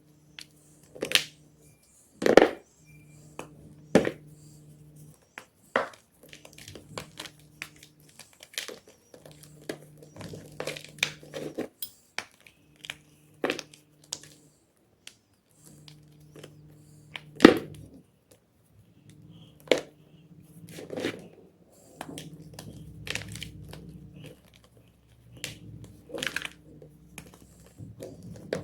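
Hard gym chalk being crushed and crumbling, giving irregular sharp crunches and crackles, with two louder cracks about two seconds in and past the middle.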